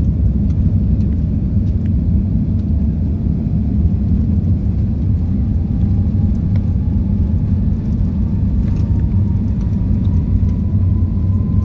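Airbus A380-800 take-off roll heard from inside the economy cabin: a loud, deep, steady rumble of the engines at take-off power and the aircraft rolling down the runway. From about halfway through, a faint whine rises slowly in pitch as the aircraft gathers speed.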